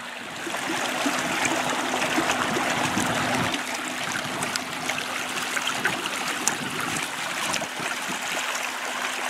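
Water rushing and splashing against the hulls of a kayak and a plastic-barrel pontoon boat moving side by side, with many small sharp splashes and a steady low hum from the boat's electric trolling motor.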